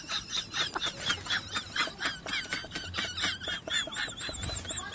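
A man laughing hard in rapid, high-pitched squealing bursts, several a second.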